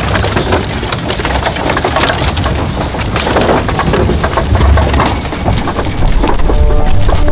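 Horses' hooves clip-clopping at a walk as a team pulling a covered wagon and several riders on horseback pass close by, an irregular run of hoof strikes over a steady rumble.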